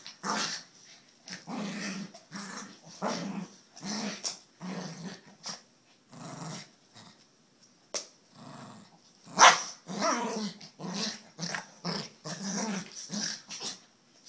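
Two dogs play-growling at each other in a long run of short bursts, with some barks; the loudest outburst comes about nine and a half seconds in.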